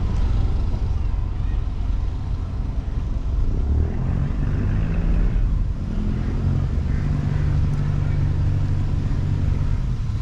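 A houseboat's engine running steadily under way: a low drone over a rumbling noise.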